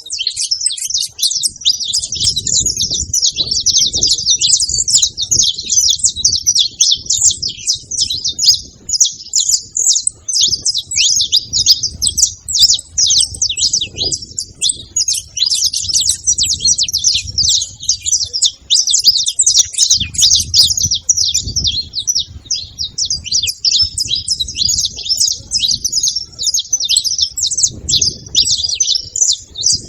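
Several saffron finches chirping and singing together in a dense, unbroken chatter of quick high notes, with a low rumble coming and going underneath.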